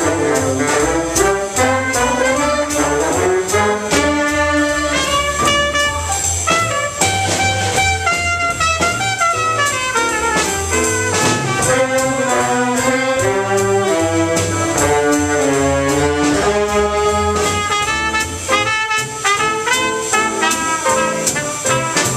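Live big band playing swing jazz: saxophone section with baritone sax, trombones and trumpets over piano, double bass and drums, the ensemble playing continuously with cymbal strokes throughout.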